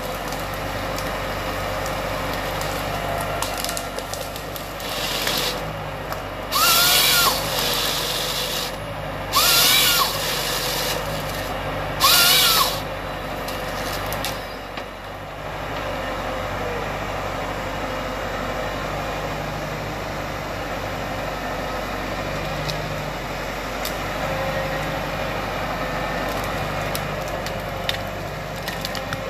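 A tractor-powered Nisula 425C harvester head processes a felled stem while the tractor's engine and hydraulics run steadily and the feed rollers rub the stem through. The head's hydraulic chain saw makes three short crosscuts about three seconds apart in the first half, each a loud burst whose pitch rises and falls.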